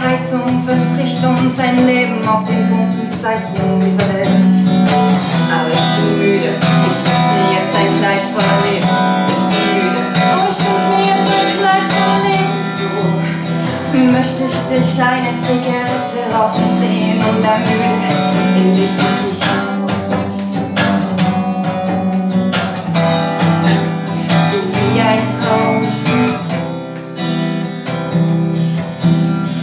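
Acoustic guitar strummed steadily through a run of chords, live and unamplified.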